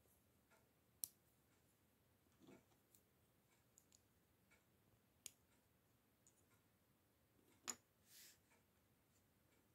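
Faint handling of LEGO plastic pieces: a few sharp clicks as parts of a small scooter are pressed together and put down, the loudest near the end, followed by a short rustle.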